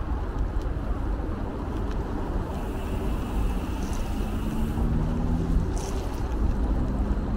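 Wind rumbling on the microphone while riding a bicycle, a steady low noise, with a low engine hum from passing road traffic coming in during the second half.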